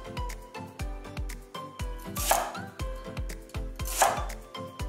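Santoku knife slicing through a shallot onto a wooden cutting board: two cuts, about halfway through and near the end, over background music with a steady beat.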